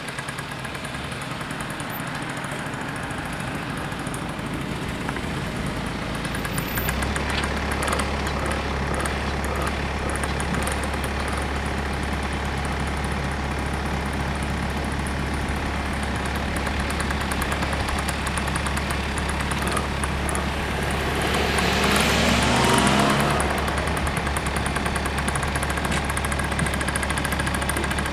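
Road traffic engines idling at a closed level crossing, with a low steady hum that grows suddenly stronger about seven seconds in. A single vehicle passes close by and is loudest a little after twenty seconds.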